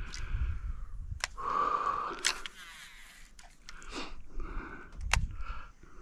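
Baitcasting reel during a lure cast: the spool whirs for about a second as line pays out, with sharp clicks and knocks from the reel and rod handling around it.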